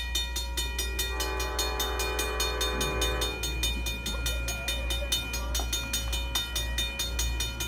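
Amtrak train 55's locomotive horn sounding one chord about two seconds long, starting about a second in, as the train approaches the crossing. A grade-crossing bell rings rapidly and steadily throughout, over a low steady rumble.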